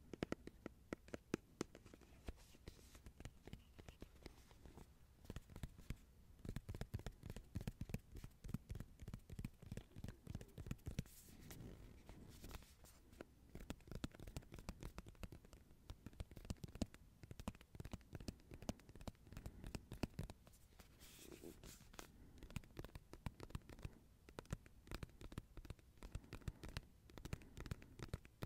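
Faint, close-miked ASMR trigger sounds: rapid soft clicks and scratching strokes, several a second, in irregular runs.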